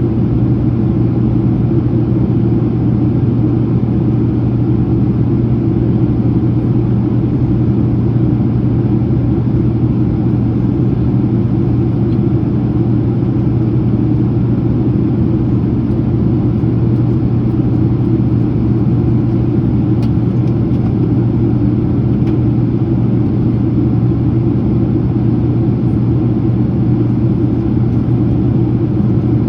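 Steady cabin noise inside a Boeing 767-300ER airliner in descent: the even rumble of the jet engines and the airflow past the fuselage, with a constant low hum.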